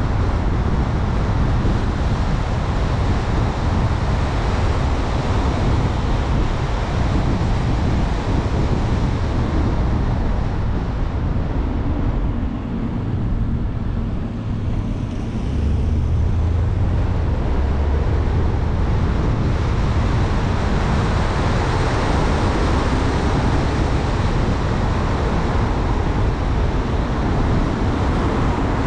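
Steady rushing wind and road noise from a car driving along a mountain road, heaviest in the low end. It eases briefly about halfway through.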